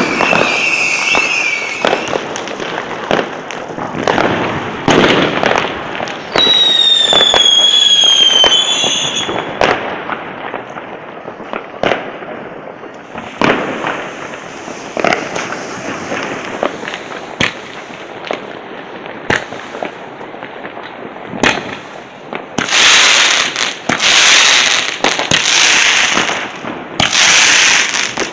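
New Year's Eve fireworks and firecrackers going off in a steady scatter of bangs and cracks. A whistling firework sounds from about six to nine seconds in, slowly falling in pitch. Three loud hissing bursts come near the end.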